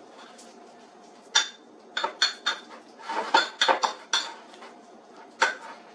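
Kitchen dishes and metal cutlery clinking and knocking together in about ten separate sharp strikes, bunched in the middle with one more near the end.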